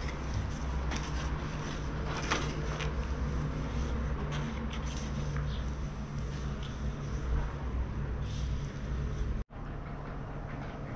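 A trowel scraping and smoothing wet concrete over a sculpted stone form, in short strokes, against a steady low mechanical hum. The sound drops out for an instant near the end, then the hum goes on.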